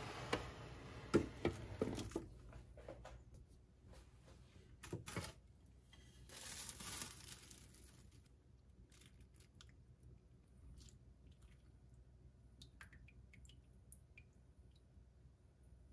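Handling of a glazed earthenware crock: a few sharp knocks of its ceramic lid in the first two seconds, then plastic wrap crinkling, then quieter handling with small clicks.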